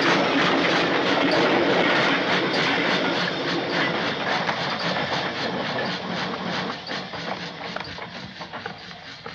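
Railway carriages rolling past, their wheels clattering rhythmically over the rail joints, the rumble fading away as the train pulls out.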